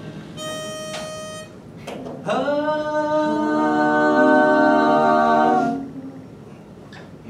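One steady reference note sounds for about a second, then the a cappella group sings a held chord together for about three and a half seconds, fading out near the end: the group taking its starting pitch before the song.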